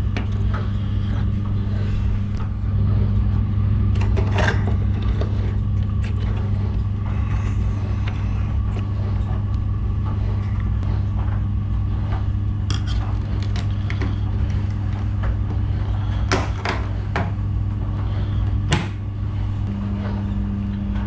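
Washing machine running normally with a steady motor hum and no rattle, its drain pump impeller freshly cleared of a trapped coin. A few sharp clicks or knocks sound now and then.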